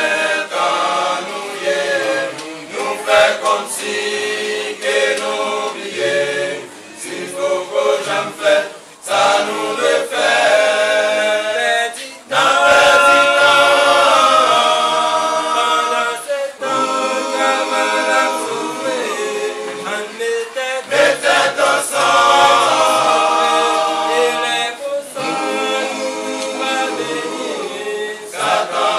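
A small group of men singing together a cappella in harmony, phrase after phrase with brief breaks, with no instruments.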